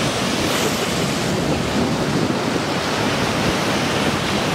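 Ocean surf breaking and washing over a rocky shore: a steady, loud rush of waves.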